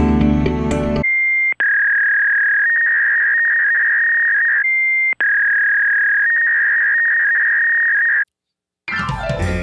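Music ends about a second in, then a steady high-pitched test-tone beep plays for about seven seconds, going with a colour-bars test card. The beep cuts out briefly twice, each time with a short, slightly higher note, and then stops. New music with a singing voice starts near the end.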